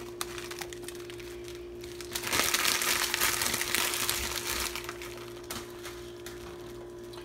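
Plastic pasta bag crinkling as dry pasta is shaken out of it into a pot of boiling water, loudest about two to four seconds in, over a steady low hum.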